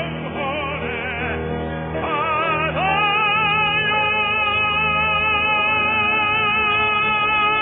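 A classically trained tenor singing a Korean art song with accompaniment, in an operatic style with wide vibrato. A short phrase comes first, then about three seconds in he moves into one long held closing note that lasts to the end.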